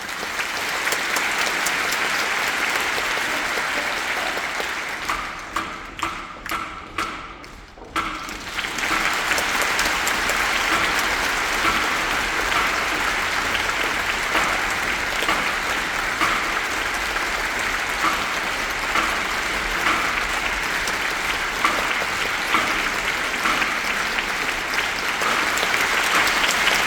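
Audience applauding. The applause thins to scattered separate claps for a few seconds, then swells back to full clapping about eight seconds in.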